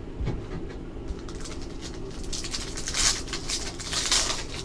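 Foil-wrapped trading-card pack and cards being handled: two bursts of crinkly rustling, about halfway through and again near the end, over a steady low hum.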